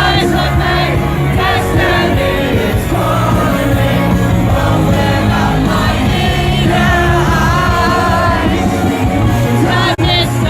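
Rock song with a male lead singer, laid over the video as background music.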